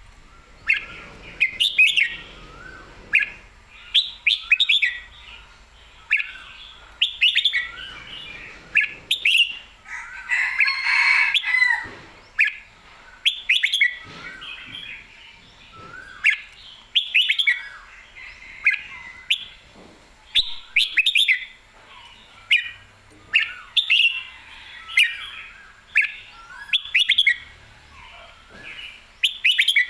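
Red-whiskered bulbul singing: short, bright chirping phrases repeated about once a second, with a busier, louder run of song about ten seconds in.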